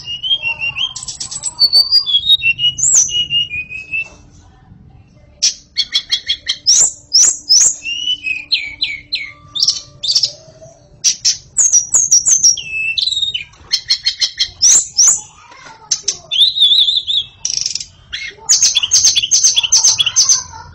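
White-rumped shama (murai batu) in full, continuous song: loud phrases of clear whistles, sliding notes and rapid repeated notes, with short pauses between phrases and a longer pause about four seconds in.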